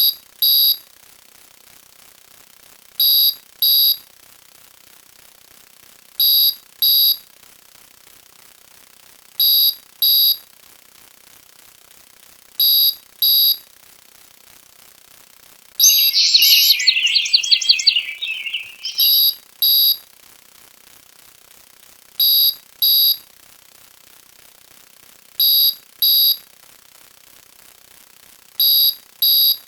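Electronic beeps in pairs, two short high-pitched beeps repeating about every three seconds. About halfway through, a different sound effect joins for about two seconds: a rapid, high, rattling trill, the loudest thing here.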